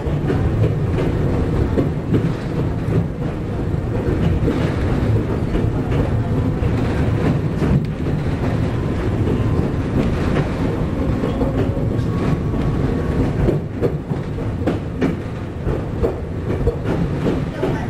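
Chichibu Railway 7500 series electric train running, heard from the driver's cab: a steady rumble with the wheels clacking over rail joints and points. A faint high squeal rises about two-thirds of the way through.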